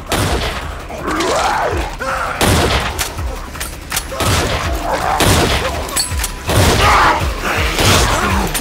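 Film action-scene soundtrack: repeated gunshots, among them lever-action rifle fire, with shouting voices in between.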